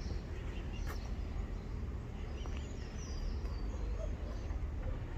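Outdoor background noise with a steady low rumble and a few faint bird chirps in the middle.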